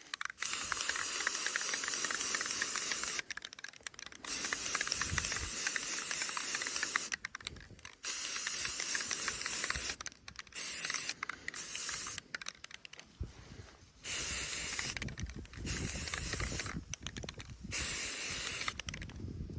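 Aerosol spray-paint can spraying in a series of bursts, some about three seconds long and others under a second, with short gaps between, as paint is laid on in streaks.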